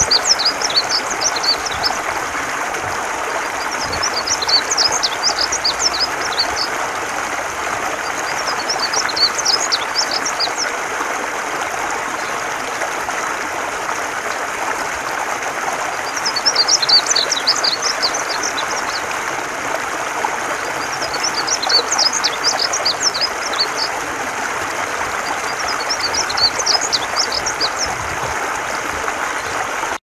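Painted bunting singing: short, high, quick warbled phrases of a second or two each, repeated about every five seconds, with a longer pause in the middle. A steady rushing noise runs underneath.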